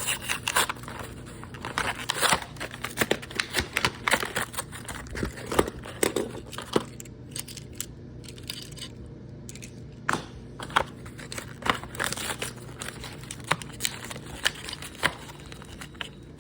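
Toy car packaging being torn open and crinkled by hand: irregular tearing, rustling and sharp clicks, with a quieter stretch about halfway through.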